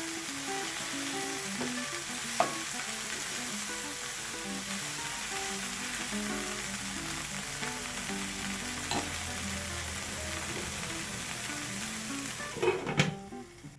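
Food sizzling in hot oil in a pan while being stirred, with occasional sharp clinks of a utensil on the pan. Near the end come a few louder knocks, and the sizzle drops away. Soft background music plays underneath.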